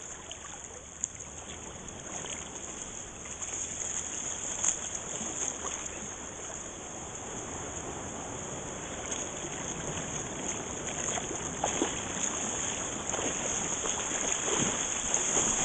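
Shallow seawater sloshing and lapping around people wading, over a steady high hiss, slowly growing louder toward the end as a wave comes in.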